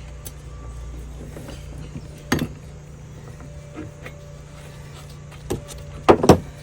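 Scattered metal clinks and knocks of hand tools and parts on a steel suspension spindle being taken apart, one about two seconds in and a loud pair near the end, over a steady low hum.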